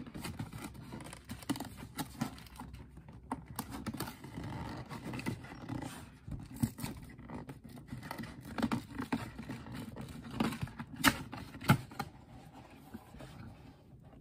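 Hands scratching, sliding and tapping on a cardboard shoe box while prying it open, with irregular clicks throughout and two sharper knocks near the end.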